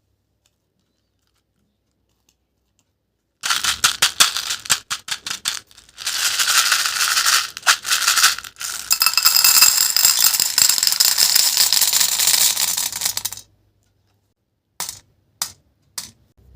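Dense crunchy crackling and rattling, many rapid small clicks, starting about three seconds in and going on for about ten seconds with short breaks, then a few single clicks near the end.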